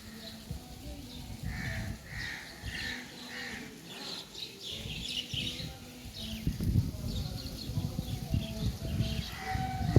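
Birds calling outdoors: a run of short repeated notes followed by higher chirps, over an uneven low rumble that grows louder in the second half.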